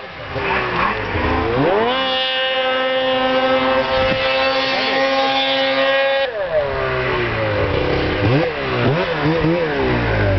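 A small engine revs up and holds a high, steady pitch under load for about four seconds. It then drops off and is revved up and down unevenly.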